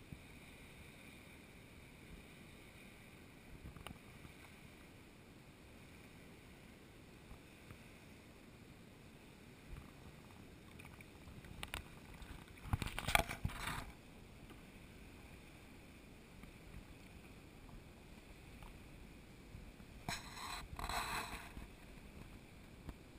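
Lagoon water lapping and splashing close to the microphone, over a faint steady hiss, with two louder splashy bursts: one about halfway through and one near the end.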